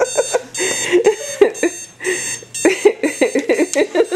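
Electronic alarm clock going off, beeping in rapid repeated pulses, several a second, high and piercing.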